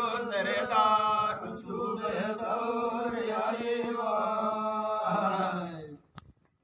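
Men's voices chanting a Banjara devotional ardas in long, drawn-out notes. The chanting breaks off about six seconds in.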